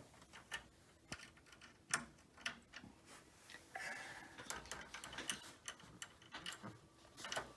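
Faint, irregular small clicks and light scraping of a screwdriver turning screws into a PC motherboard.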